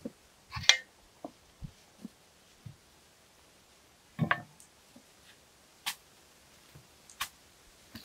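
Shovel work in dirt and stones: a handful of separate knocks and scrapes with quiet between, the loudest less than a second in, another about four seconds in, and two sharp clicks later on.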